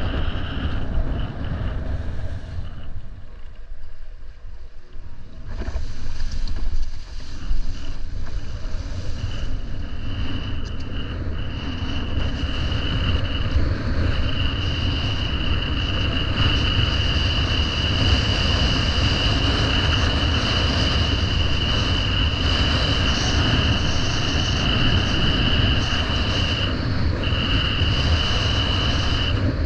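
Wind buffeting the microphone, with water rushing, while windfoiling. A steady high whistle runs through most of it and breaks off briefly a few times. There is a short quieter lull a few seconds in.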